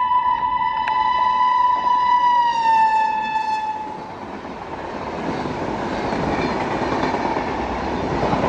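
Electric locomotive's horn sounding one long note that drops in pitch about two and a half seconds in as the locomotive passes. It stops about a second later, giving way to the rushing noise of the passenger coaches going by at speed, which grows louder toward the end and then cuts off suddenly.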